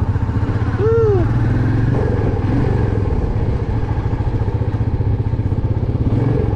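Royal Enfield Meteor 350's single-cylinder engine running steadily under way, with a fast, even pulse from its firing strokes.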